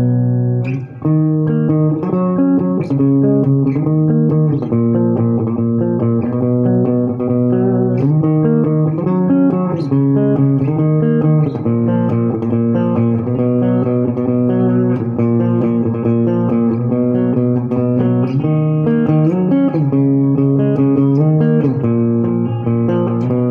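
Amplified electric guitar played solo, a continuous run of picked notes and chords that change every second or so, with a brief break about a second in.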